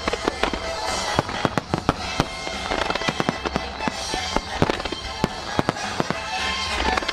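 Fireworks finale barrage: aerial shells and low ground-level bursts going off in rapid, irregular bangs, several a second, over a continuous low rumble.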